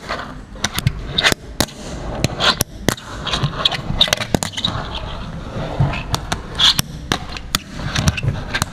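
Fingerboard being skated on a ramp: small wheels roll, and the deck and trucks land and hit the surface in repeated sharp, irregular clacks and pops.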